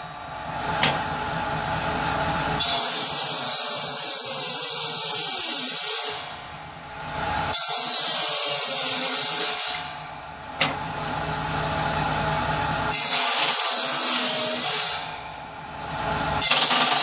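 Power saw cutting through wood in repeated passes: four loud, hissing cuts of two to three seconds each, with the saw running more quietly between them.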